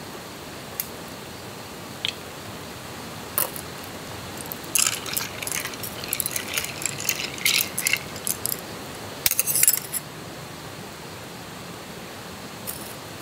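Clinking and rattling of small hard, metallic objects being handled, probably camp gear. A few single clicks are followed by a quick, dense run of clatters from about five to ten seconds in, over a steady background hiss.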